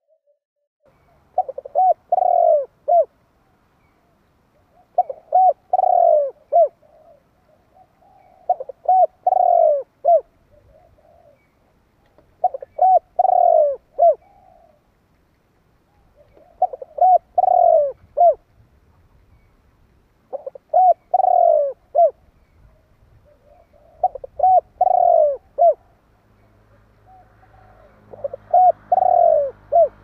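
Spotted dove singing its cooing song, a short phrase of four or five notes, one of them louder and drawn out, repeated eight times about every four seconds.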